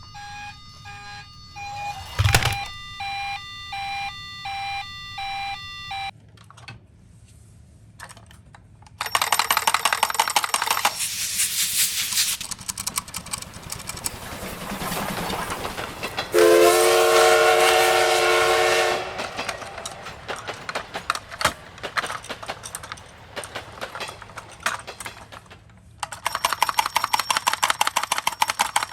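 Toy ambulances in a cardboard box: a toy siren plays a repeating electronic tone pattern for about six seconds, then the little cars run with bursts of rattling, and a buzzy electronic tone sounds for a few seconds in the middle.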